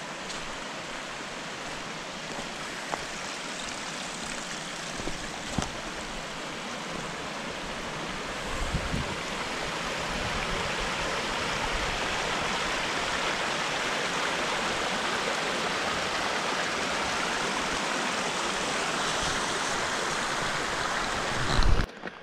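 Snow-fed mountain creek rushing over a rocky bed: a steady wash of water noise that grows louder about eight to ten seconds in. A few soft knocks, and a louder thump just before the sound cuts off suddenly at the end.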